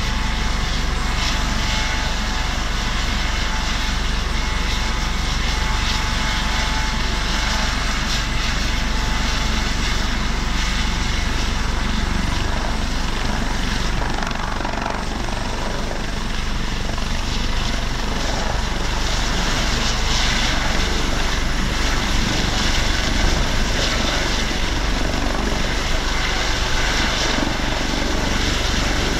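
Airbus Helicopters AS365/565 Dauphin twin-turbine helicopter running with its main rotor and ducted Fenestron tail rotor turning, then lifting off into a low hover. The sound grows louder over the second half.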